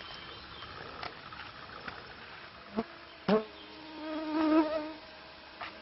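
A flying insect buzzing, a wavering hum that swells for about a second and then stops, just after two knocks.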